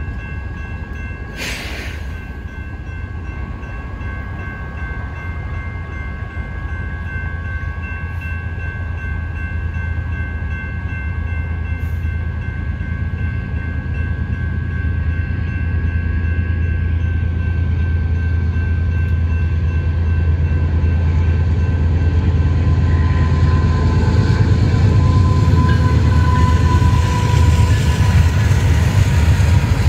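BNSF freight train's diesel locomotives approaching a grade crossing, their low rumble growing steadily louder until the train reaches the crossing near the end. Crossing-signal bells ring steadily over it, and there is one short knock about a second and a half in.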